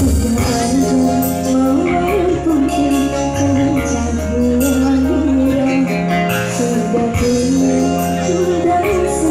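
A woman singing a dangdut song into a microphone over a live electronic-keyboard band, heard through a PA. Her wavering melody runs over held keyboard chords and a steady bass line.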